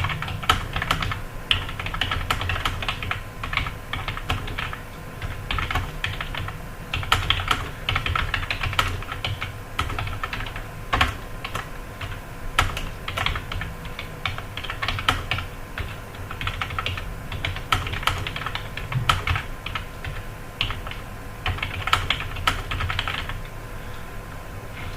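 Fast touch-typing on a computer keyboard: a rapid, irregular stream of key clicks that stops near the end.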